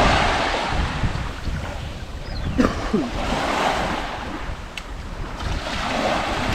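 Waves washing on the shore with wind buffeting the microphone, the wash swelling and easing.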